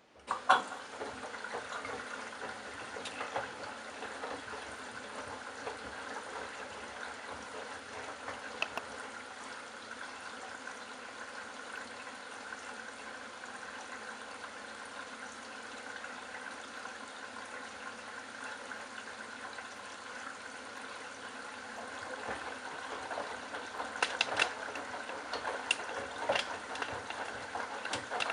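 Candy Bianca washing machine taking in water: the sound starts suddenly with a sharp click, then water runs in steadily. Several splashy knocks come near the end.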